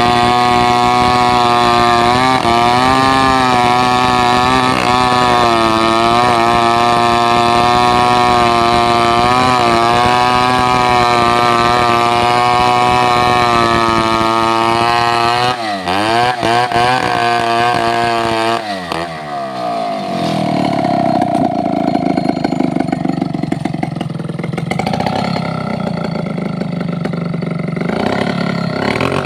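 Chainsaw engine running at high revs with a steady, slightly wavering note for about half the time. Then its pitch drops sharply and swings, and the sound turns rougher and a little quieter for the rest.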